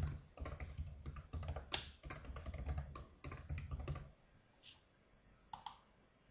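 Typing on a computer keyboard: a quick run of keystrokes for about four seconds, then two single clicks.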